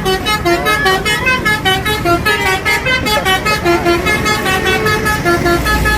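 Tour bus's telolet basuri musical horn playing a fast tune of short, clear notes, about four or five a second, stepping up and down in pitch, over the low rumble of the bus.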